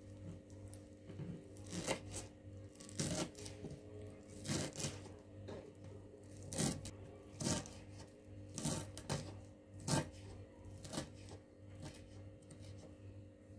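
Kitchen knife chopping fresh coriander leaves on a wooden cutting board: about a dozen sharp knocks of the blade through the leaves onto the board, roughly one a second and unevenly spaced. A steady low hum runs underneath.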